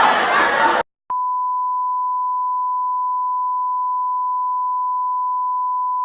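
A loud noisy sound cuts off abruptly, then after a short gap a single steady 1 kHz beep tone, like a censor bleep or test tone, starts about a second in and holds unchanged.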